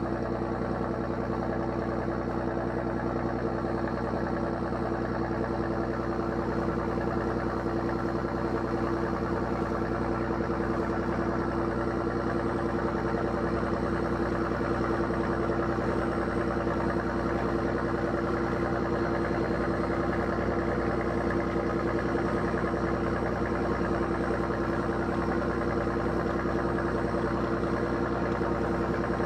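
A boat's engine running at constant speed: a steady, unchanging drone with an even low throb.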